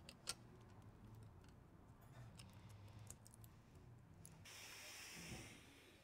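Near silence: a few faint clicks of small parts being handled on a workbench over a low steady hum, with a short hiss about four and a half seconds in.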